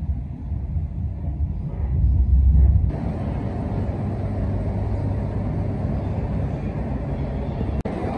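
Low rumble of a moving train heard from inside the carriage. About three seconds in it cuts abruptly to the steady, hissing background noise of a large railway station hall, with a brief dropout near the end.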